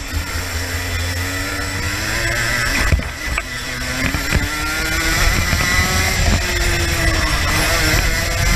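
Racing kart engine heard onboard at race speed, its pitch climbing in repeated rises as the kart accelerates out of corners. About three seconds in the engine note drops briefly, with a couple of sharp knocks, then climbs again.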